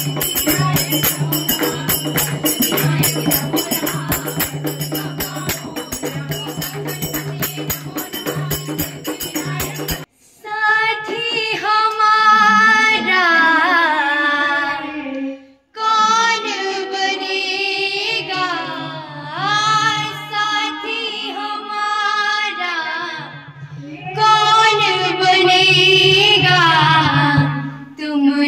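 Music: about ten seconds of rhythmic instrumental music with jingling percussion, which cuts off suddenly and gives way to a sung melody over a low steady drone, broken by short pauses.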